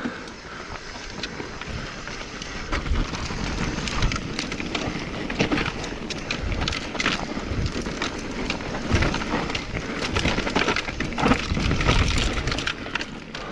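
Wind rumbling on the microphone while a mountain bike rolls over soft, loose dirt, with frequent rattles and knocks from the bike as it bumps along.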